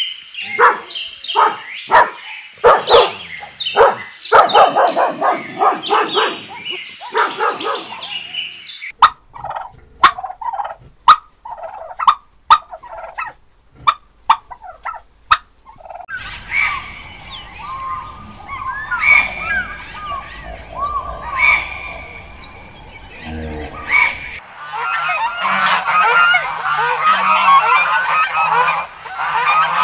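A string of animal sounds: a puppy's rapid yips and whines, then a run of sharp clicks, then domestic turkeys calling. The last few seconds are a flock of Canada geese honking together.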